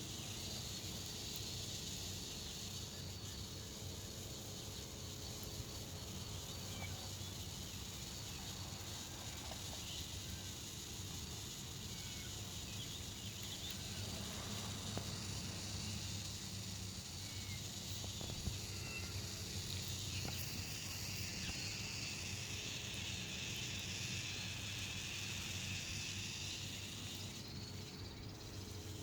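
A strange, steady sucking sound coming from the flooded street, running without a break.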